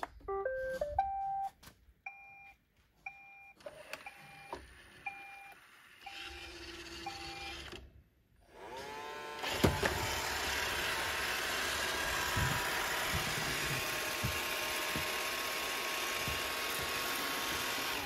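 iRobot Roomba 600-series robot vacuum started with its Clean button: a short melody of electronic beeps, then a string of single beeps for several seconds. About nine seconds in, its motors spin up with a rising whine and then run steadily as it begins cleaning.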